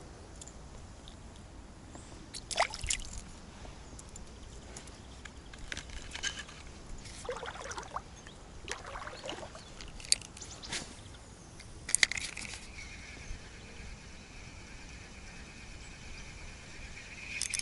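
Ultralight spinning reel being handled and wound. Scattered light clicks and scratches come first; about twelve seconds in there is a sharp click, then the thin, steady whine of the reel retrieving the spinner.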